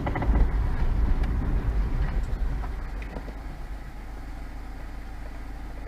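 Vehicle running, heard from inside: a low rumble of engine and road noise that dies down over the first three or four seconds as the vehicle slows, then settles to a steady, quieter low rumble.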